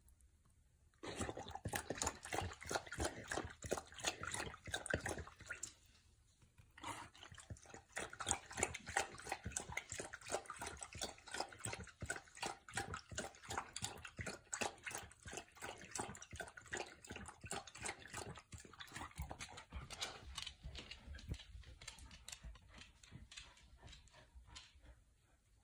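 A puppy lapping water from a stainless steel bowl: a fast, rhythmic run of wet laps, with a short break about six seconds in, thinning out toward the end.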